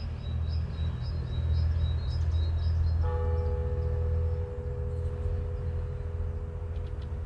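A church bell struck once about three seconds in, ringing on with a clear pitched tone, over a steady low rumble of passing road traffic.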